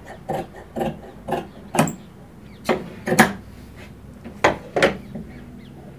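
Large steel tailor's shears snipping through cotton cloth in a run of quick strokes, about two a second, trimming off its printed edge. Later come a few louder knocks on a wooden table.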